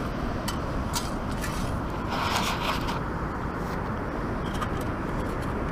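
Steady wind and surf noise with scraping and crunching as a sand scoop digs through sand and stones, loudest about two to three seconds in.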